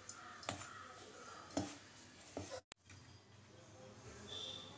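Hand kneading coarse ground peanut and green gram flour with jaggery syrup in a steel bowl: faint rustling with a few light clicks. The sound drops out briefly a little past halfway and stays quieter after.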